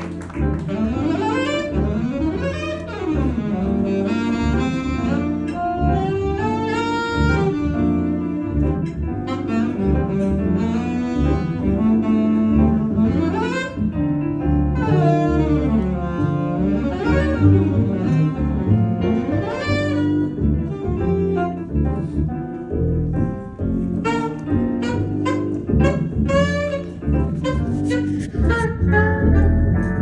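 Live jazz: a saxophone playing fast runs that climb and fall over an upright double bass.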